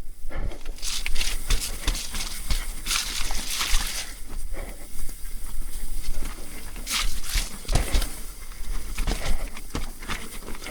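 Mountain bike riding over a wet, rocky, rooty trail: tyres and frame clattering, with irregular knocks and rattles as the bike hits rocks and roots.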